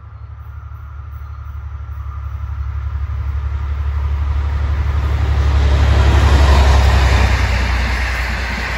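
V/Line N class diesel locomotive hauling a passenger train approaches and passes. Its engine drone grows steadily louder to a peak about two-thirds of the way in, then the carriages run by as the sound starts to fade.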